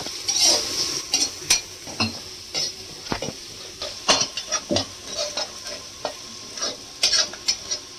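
Long metal spatula scraping and clicking against a steel kadhai in irregular strokes, while ginger and green-chilli paste sizzles in hot oil as it is fried (bhuna).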